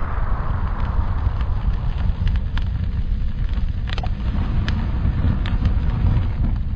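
Fire sound effect: a steady low rumble of burning flames with a handful of sharp crackles scattered through it.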